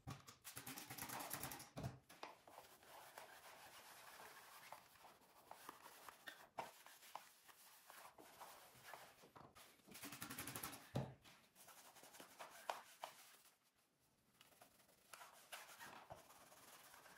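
Faint rubbing and rustling of an electric clothes iron sliding over cloth while the fabric is smoothed by hand, with a few soft knocks.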